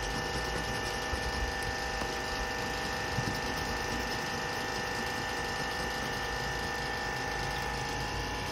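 A coin scraping the silver latex coating off a scratch-off lottery ticket in quick back-and-forth strokes, over a steady background whine.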